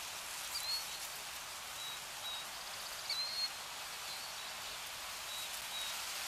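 Outdoor ambience: a steady hiss with a few short, high bird chirps scattered through it.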